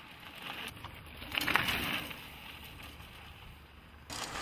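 Mountain bike tyres rolling and scrubbing over dry dirt as the bike goes through a corner, swelling loudest about a second and a half in.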